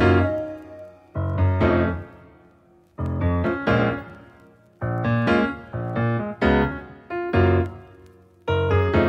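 Background music: solo piano playing slow chords that ring and fade, in short phrases with brief pauses between them.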